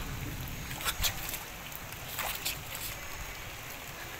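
Splashing in shallow floodwater: a few short sharp splashes, about one second in and again around two seconds in, over the steady hiss of heavy rain.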